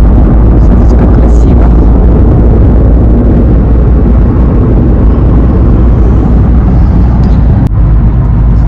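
Loud, steady rumble of road and wind noise inside a moving car, heaviest in the low end, with a brief dip near the end.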